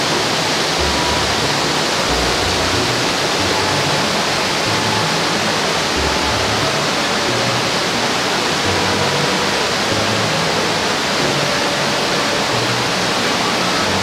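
Steady rush of a mountain stream's flowing water.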